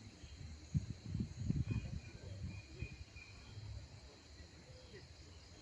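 Outdoor rural ambience: a steady high insect drone with a few faint short chirps, and low rumbling thumps on the microphone about a second in.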